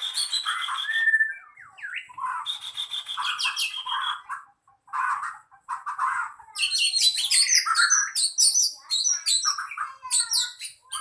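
Murai songbird singing loud, varied whistled phrases with short pauses between them, turning into a dense run of rapid chattering and mimicked notes in the second half.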